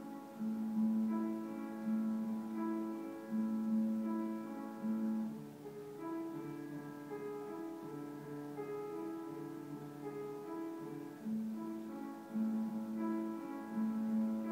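Calm instrumental background music: held keyboard notes changing slowly over a repeating low line.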